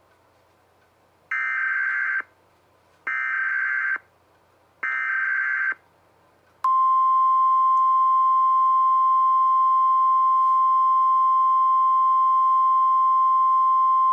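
Emergency Alert System test signal: three short buzzy data bursts of the coded alert header, each under a second, followed about halfway through by the long, steady, single-pitched attention tone of the weather-radio kind.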